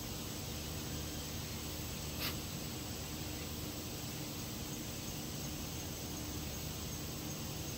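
Steady background hiss with a faint low hum, and one brief click about two seconds in.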